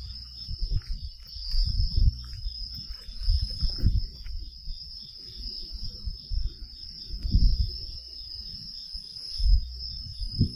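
A night insect chorus: a steady high-pitched chirring with a faster pulsing trill beneath it. Irregular low thumps and rustles close to the microphone sound through it, loudest around two, four, seven and nine seconds in.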